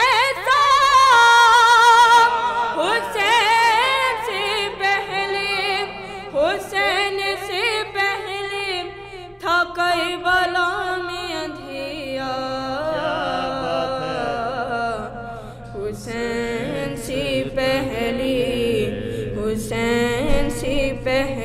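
Devotional manqabat being sung: drawn-out vocal phrases with wavering, ornamented notes that slide up and down in pitch.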